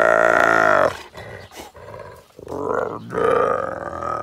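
Striped hyena calling: a long, loud, pitched call that wavers and ends about a second in, followed by a second call beginning around two and a half seconds in.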